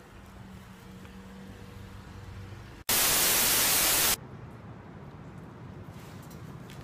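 A loud burst of even, hiss-like static about a second and a half long, switching on and off abruptly after a split-second dropout, over a faint background with a low steady hum.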